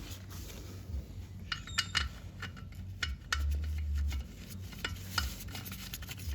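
Irregular small metal clinks and clicks of hand tools and parts being handled while working under the ATV.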